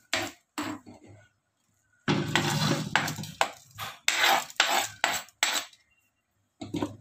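Steel ladle scraping and knocking against an iron kadai as dry-roasted whole spices are scooped out, with the pan clattering as it is shifted and tilted on the gas stove. There are a few separate knocks at first, a busy stretch of scraping and clatter in the middle, and one last clatter near the end.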